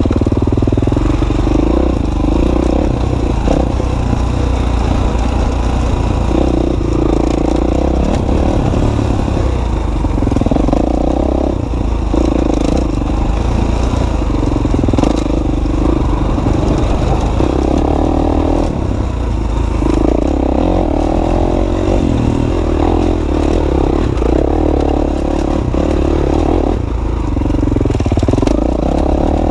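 Dirt bike engine running as it is ridden along a trail, its note rising and easing off every second or two with the throttle, over a steady low rumble.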